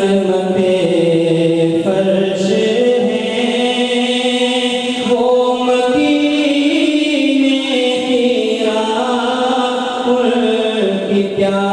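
A man singing a naat, a devotional poem in praise of the Prophet, into a microphone, in long held notes that waver and glide up and down in pitch.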